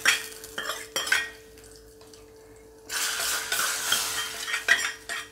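Metal tempering ladle clinking against the rim of an aluminium pressure cooker as a hot-oil tempering of fried shallots, curry leaves and dried chillies is tipped into sambar. About three seconds in there is a hissing sizzle that lasts nearly two seconds.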